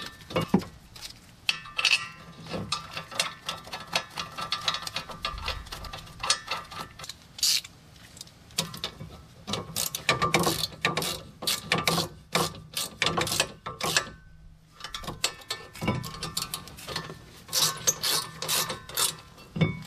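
Hand ratchet clicking in quick runs as the brake caliper bracket bolts are run in and tightened, with a short pause about two-thirds of the way through.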